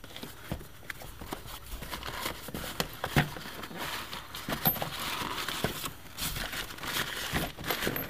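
Cardboard box flaps being pulled open and brown packing paper rustled and crumpled by hand, with scattered small taps and clicks; the rustling gets busier about halfway through.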